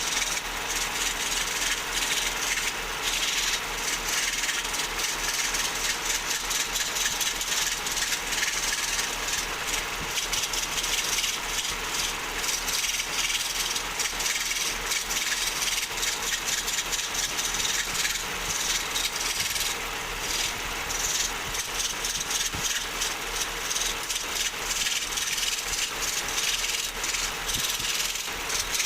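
Wood lathe running, with a tool cutting the spinning wood in a steady hiss over a low motor hum.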